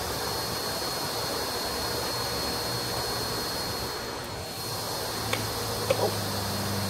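Table saw and its attached shop vacuum running steadily with no cut under way: an even rushing hiss with a steady high whine over it. A few light knocks of a board being handled near the end.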